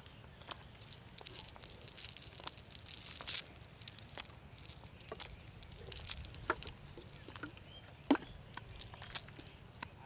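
A wet cast net being pulled and picked over by hand on dry, crumbly earth: a dense, irregular crackling and rustling of sharp clicks.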